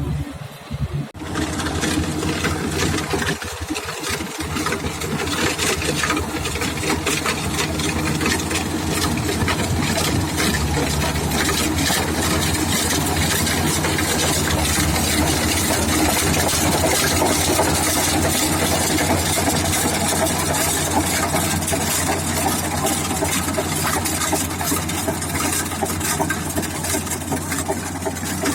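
Engine of a power rice thresher (mesin dos) running steadily; it cuts in abruptly about a second in, with a hiss of threshing noise over it.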